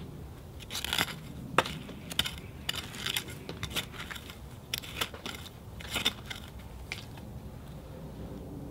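Hand hoe digging into soil around carrots: a string of irregular crunches and scrapes as the metal blade cuts through the earth, ending about a second and a half before the end.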